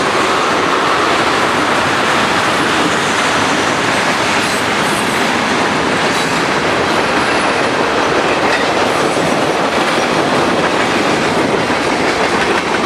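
Freight train cars rolling past: a steady, loud clatter and rumble of steel wheels on the rails.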